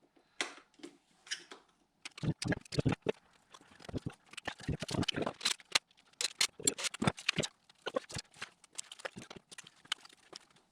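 Irregular, rapid clicks and knocks of wiring connectors and clips being unplugged and handled as the wiring is moved aside in an engine bay.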